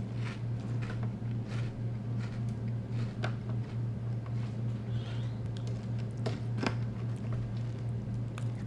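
Crunchy chewing of Cap'n Crunch with Crunch Berries cereal in milk, with a few sharp clicks of a metal spoon against the bowl, the sharpest a little after six seconds in. A steady low hum runs underneath throughout.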